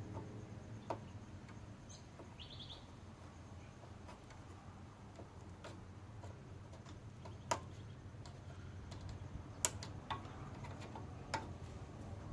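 Scattered light clicks and taps of hand tools and small mower engine parts being handled and fitted, a few sharper than the rest, with a short high chirp about two and a half seconds in.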